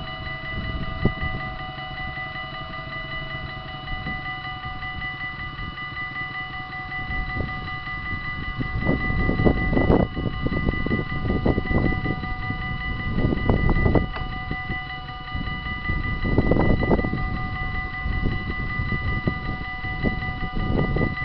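Railway level-crossing warning bell ringing steadily while the barriers are down. From about eight seconds in, low gusts of wind noise on the microphone come and go over it.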